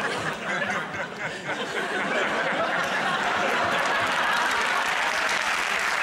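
Studio audience laughing, filling out into a steady wash of laughter and applause.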